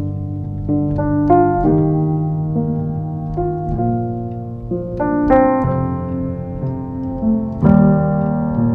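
Piano music: slow held chords, changing every second or so.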